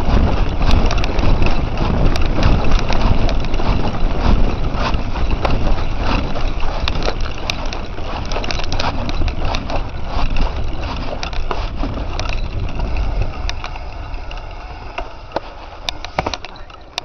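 Mountain bike ridden over a dirt forest trail: tyres crunching over earth and leaf litter, the bike rattling with many sharp clicks and knocks over a steady low rumble. It gets quieter over the last few seconds.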